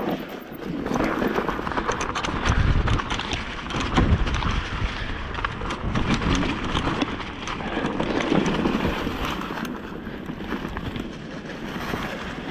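Mountain bike riding downhill on a dirt trail covered in dry leaves: tyres crunching over leaves and ground, with the bike clattering over bumps. Wind buffets the microphone in gusts.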